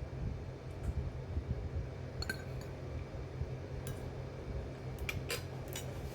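Kitchen utensils and dishes clinking: about six short separate clicks and knocks, a couple with a brief metallic or glassy ring, over a steady low rumble.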